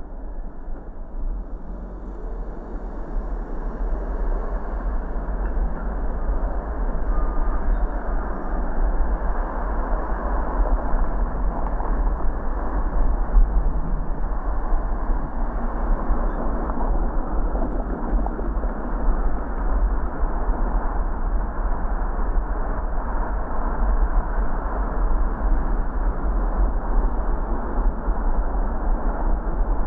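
Car driving through city streets: a steady low rumble of engine and tyre noise, rising a little over the first few seconds.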